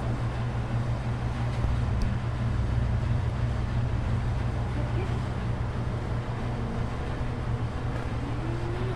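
A steady low mechanical hum with an even rushing noise over it, unchanging throughout.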